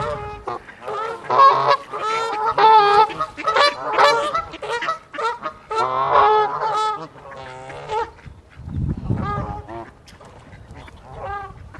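Canada geese honking in alarm at a dog: a rapid, dense run of loud honks that thins out to occasional calls after about eight seconds. A brief low rumble comes around nine seconds in.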